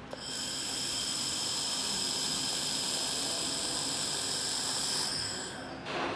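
2000 W handheld laser welder running a weld on 3 mm aluminum: a steady hiss with a high whine, starting just after the start and cutting off about five seconds in. A brief knock follows near the end.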